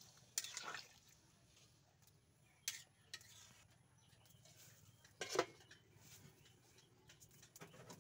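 Metal spatula knocking and scraping against an aluminium cooking pot as a curry is stirred: a few separate sharp clinks, the loudest about five seconds in.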